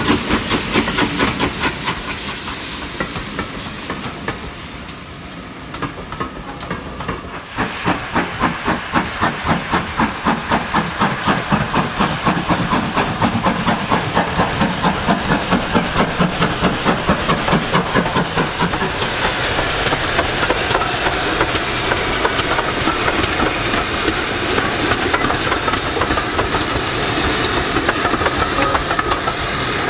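GWR Hall-class 4-6-0 steam locomotive 4930 Hagley Hall hissing steam close by. After a sudden change about a quarter of the way in, the engine chuffs steadily, about two beats a second, as it works its train of coaches past.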